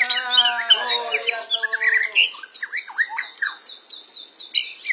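White-rumped shama (murai batu) song: a long, varied run of whistles and chirps. It opens with a lower warbling phrase, and about halfway through comes a fast string of high downward-sliding whistles, about four a second.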